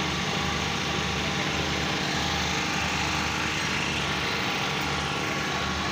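A small engine running steadily, with a low hum that pulses about once a second.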